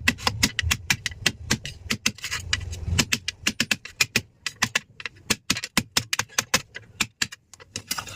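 Rapid, irregular sharp clicks and taps of hard objects, several a second, with a low rumble underneath for the first few seconds.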